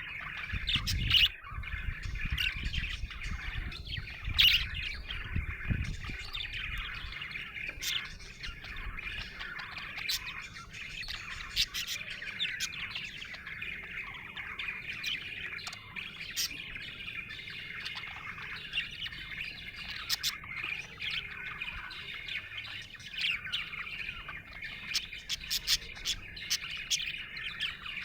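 Budgerigar chirping and warbling without a break, a busy chatter dotted with many short, sharp chirps. A low rumble runs under it for the first several seconds.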